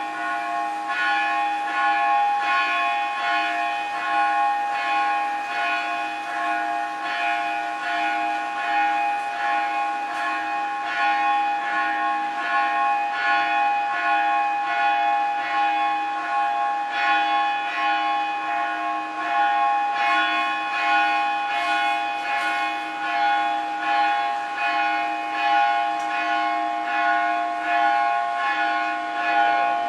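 Temple bells ringing continuously in quick, even strokes, their tones ringing on and blending into a steady peal.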